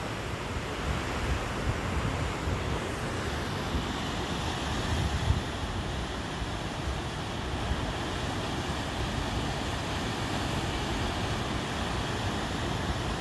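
Steady rush of a waterfall pouring down rock ledges, with wind buffeting the microphone. The rush grows a little fuller a few seconds in.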